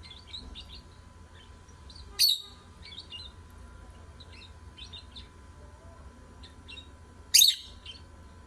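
Lovebirds chirping in a run of short high chirps, with two much louder, sharp calls, one about two seconds in and one near the end, over a low steady hum.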